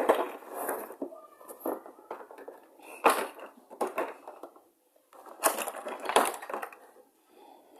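Packaging of a hair-dryer set being opened and handled: irregular crinkling, rustling and scraping, with a short pause about five seconds in.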